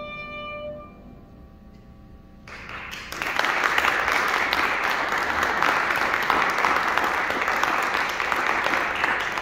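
The final held note of a trumpet with piano ends about a second in and rings away in the hall. About two and a half seconds in, audience applause starts and quickly grows loud and steady.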